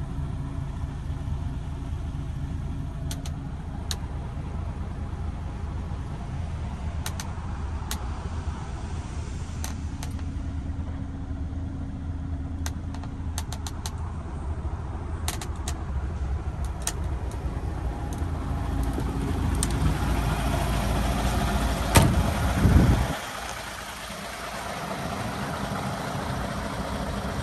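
DAF XF106's PACCAR MX-13 straight-six diesel idling steadily, heard from inside the cab, with scattered small clicks and knocks. About 22 seconds in there is a sharp knock and a brief loud rumble, after which the engine hum drops away abruptly.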